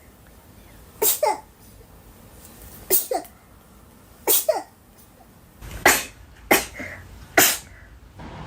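A woman sneezing, six short sharp sneezes with a falling pitch, a second or two apart at first and then faster near the end; several have a quick two-part shape.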